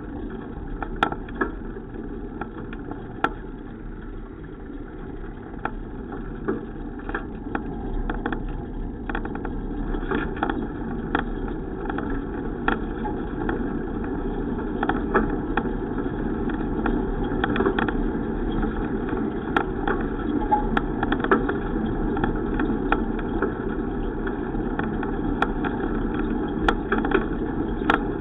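Steady road and wind noise from riding a bicycle, growing gradually louder over the first half, with frequent small clicks and rattles.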